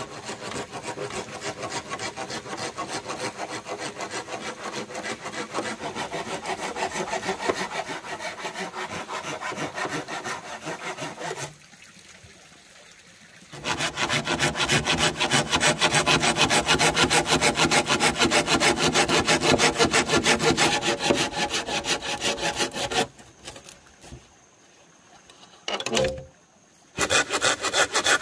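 Hand saw cutting through green bamboo poles with quick back-and-forth strokes. It comes in bouts: a long one, a short pause, a louder one, then a brief gap before it starts again near the end.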